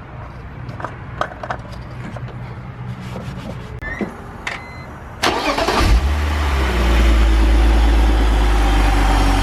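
A few light clicks and a couple of short beeps, then about five seconds in the BMW 330Ci's straight-six is cranked by the starter, catches within a second and settles into a steady idle. The engine is being run just after an oil change, so that oil fills the new filter.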